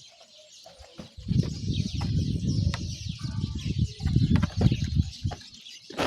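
Wind buffeting the microphone: an uneven, gusting low rumble that starts about a second in.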